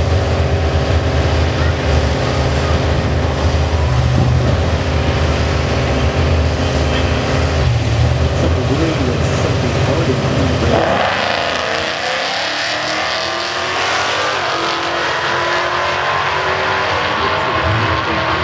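Two drag-racing cars, a Holden HQ ute and a red sedan, idling at the start line with a steady low engine rumble. About eleven seconds in the sound changes suddenly to the cars heard from farther away, accelerating hard down the strip with the engine pitch climbing.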